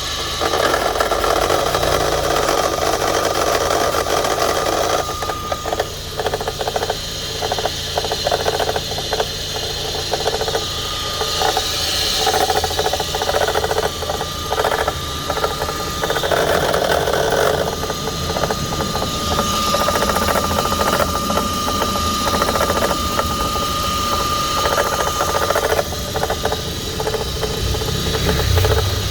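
Audi A3 1.8 engine running with a repeated tapping knock and a steady high whine over it: the 'toc, toc' and hiss that the owner traced to a faulty alternator.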